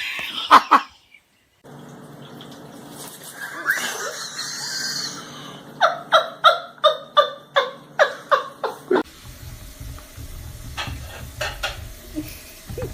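Laughter: a run of about ten short, rhythmic bursts, about three a second, between stretches of background noise.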